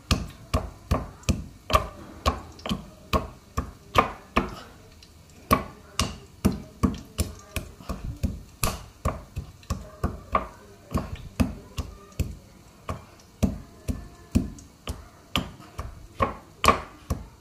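Pestle pounding almonds in a small mortar by hand, a steady run of sharp knocks about three a second as the nuts are crushed coarsely.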